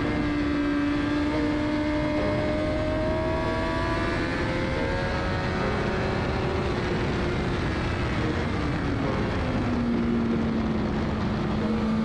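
Onboard sound of a sport motorcycle at speed on a race track: the engine's steady note drifting slowly lower in pitch as the bike slows, over a constant rush of wind noise.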